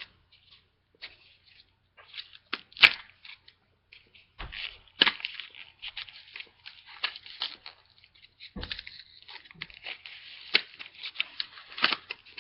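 Foil trading-card booster pack being torn open and crinkled: irregular crackles and rustles, with a single sharp snap about three seconds in.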